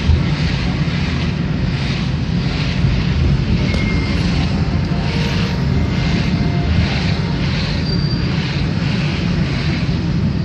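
Road and engine noise heard inside a moving car: a steady low rumble, with a regular whooshing pulse about twice a second.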